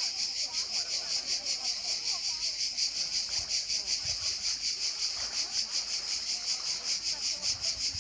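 Cicadas singing, a loud high-pitched drone pulsing fast and evenly throughout, with faint distant voices underneath.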